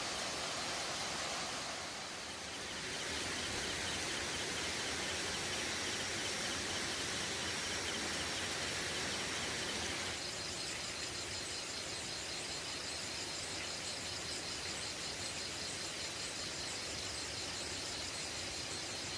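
Forest ambience with a steady background hiss of insects. About ten seconds in, a high, rapidly pulsing insect trill starts and keeps going.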